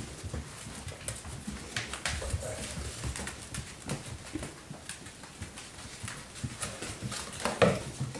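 Four-week-old puppies' paws and claws tapping and clicking on a hard floor as they walk about, with one louder brief noise near the end.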